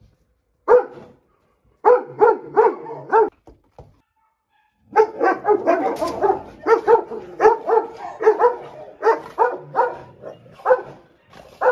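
Large kennel dog barking, worked up at another dog it quarrels with daily: a single bark, then four in quick succession, a pause of about a second and a half, then a fast run of barks, about three a second, lasting some six seconds.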